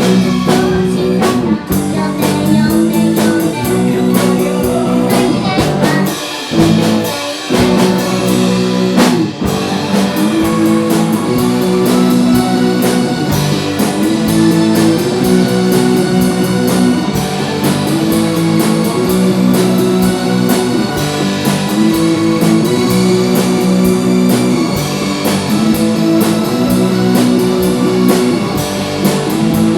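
Rock band playing live: guitar chords over a drum kit, with a brief break about six seconds in where the low end drops away before the band comes back in.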